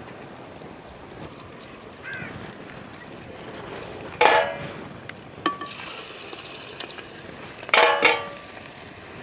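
Garlic murukku dough frying in oil in an aluminium pot, a steady low sizzle. Over it, a goat bleats twice, briefly and louder than the frying, about four and eight seconds in, with a single metal clink between the two bleats.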